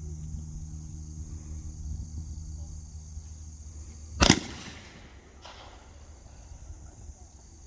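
A single shotgun shot, fired by a shooter at a clay-target station, about four seconds in, with a trailing echo.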